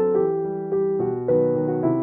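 Background music: a soft piano melody, one note after another at an even pace.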